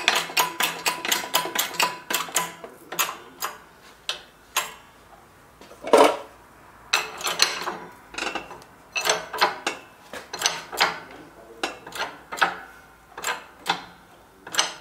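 Sharp metallic clicks and knocks from a shop press forming a steel gusset plate over a tube former. A fast run of clicks in the first two seconds gives way to scattered single clicks and clunks.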